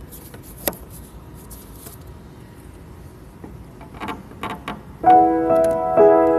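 Faint clicks and rustles of handling, then about five seconds in a keyboard starts playing loud held chords, the chord changing about a second later.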